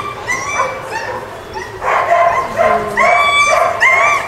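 Dog giving a rapid string of high-pitched, yipping barks, louder from about two seconds in.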